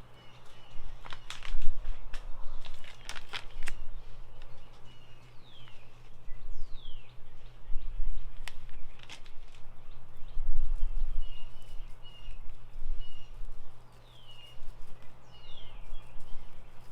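Crumbly powder blocks crunching and cracking as they are crushed, in sharp clusters of snaps about a second in, around three seconds and again near nine seconds. Between the crunches, birds chirp in the background with short downward-sliding calls.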